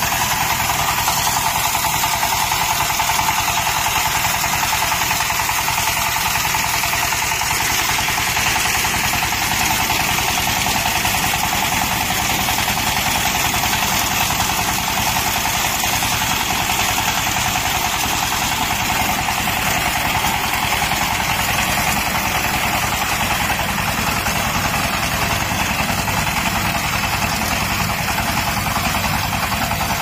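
Single-cylinder diesel engine of a walk-behind power tiller running steadily under load, driving a front-mounted reaper through standing rice.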